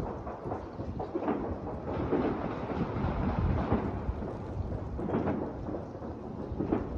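Many distant gunshots and fireworks going off across the city, blending into a continuous rolling rumble, with sharper reports standing out every second or two.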